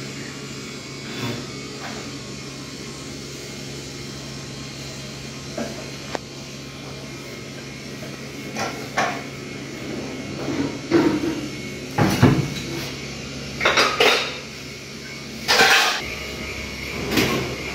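Kitchenware being handled and put away: light knocks over a steady low hum at first, then from about eight seconds in a run of clatters and knocks, the loudest about twelve and fifteen seconds in.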